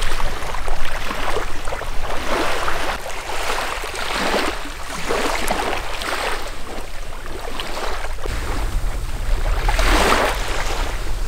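Small sea waves washing in on a sandy shore: several swells of surf noise, the loudest near the end, over a low wind rumble that grows in the last few seconds.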